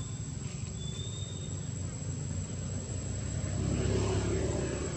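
Low rumble of a distant engine, swelling about four seconds in, with a thin high steady tone above it.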